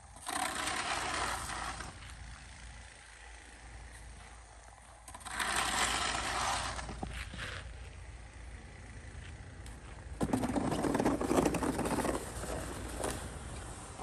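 Snow shovel blade scraping over a snowy driveway in three long pushes of about two seconds each, the last one lower and heavier.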